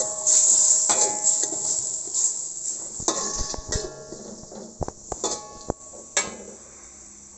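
A metal spatula scraping and clinking against a metal wok, several sharp ringing clinks, as garlic, ginger and onion are stir-fried in oil. The oil sizzles loudly at first and the hiss dies down steadily toward the end.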